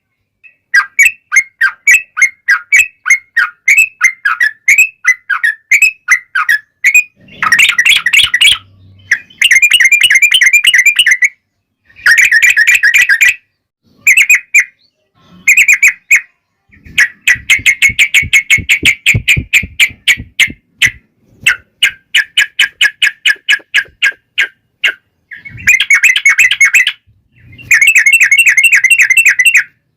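Yellow-vented bulbul (trucukan) chattering in a lure recording: fast runs of short, repeated notes in loud bursts of one to three seconds with brief pauses between, the long rapid 'ropel' fighting call.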